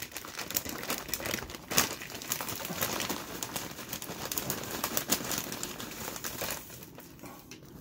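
Plastic chip bag of kettle chips being opened and rummaged in, crinkling and crackling irregularly, dying down near the end.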